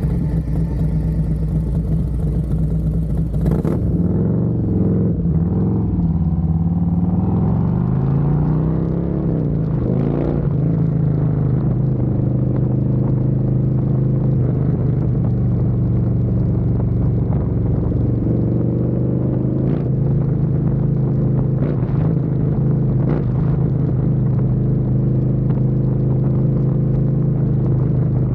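Harley-Davidson Road Glide's Milwaukee-Eight V-twin running through a stainless Thumper Moto 2-into-1 exhaust, tuned with a Screaming Eagle Stage 2 511 cam. The revs rise and fall a couple of times in the first ten seconds, then it settles into a steady, even run.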